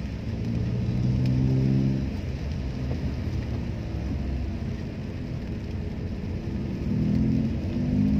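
Car engine and road noise heard from inside the cabin in slow traffic: a steady low rumble, with a deeper pitched engine note swelling twice, about a second in and again near the end.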